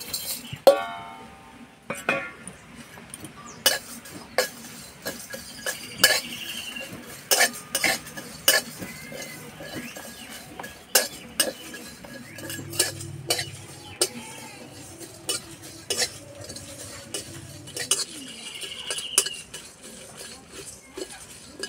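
Whole spices (coriander seed, fennel, cumin, dried red chillies, cardamom and cinnamon) tipped from a steel plate into a metal wok, then roasting while a steel spatula scrapes and stirs them, knocking against the pan in sharp irregular clicks, about one or two a second.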